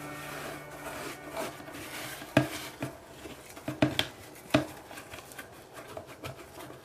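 Fluffy white glitter slime being kneaded and pressed by hand in a plastic bowl: soft rubbing and squishing with scattered sharp sticky pops and clicks, a few louder ones in the middle.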